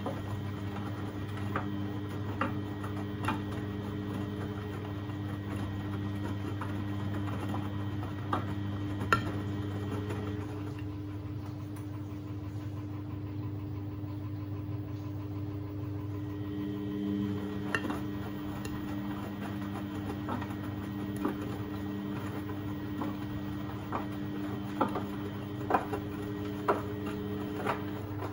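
Beko WMB71642W washing machine running its wash: a steady motor hum with scattered light clicks and knocks as the load tumbles in the drum. The hum thins out for several seconds in the middle, then comes back.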